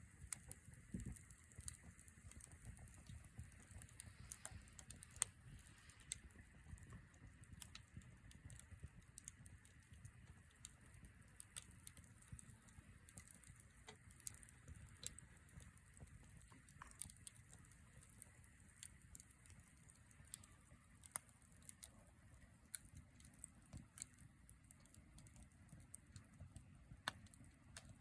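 Wood campfire crackling: irregular sharp pops and snaps, several a second, over a soft low rumble of the flames.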